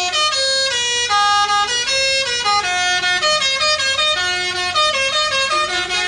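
Telolet horn, the multi-note air horn set of an Indonesian bus, playing a quick melody of stepped notes with no break, often two notes sounding at once.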